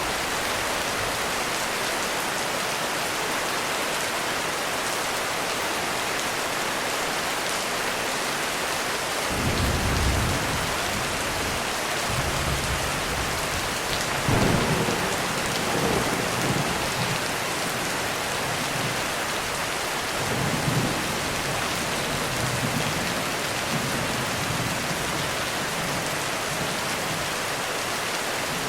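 Heavy rain falling steadily, with rolls of thunder: a first rumble about nine seconds in, a stronger, longer one a few seconds later, and fainter rumbles after that.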